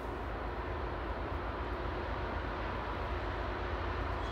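Distant, steady rumble of an approaching freight train hauled by GE diesel locomotives (an ET44AC and an ES44AC-H), growing slightly louder, with faint steady tones over a low rumble.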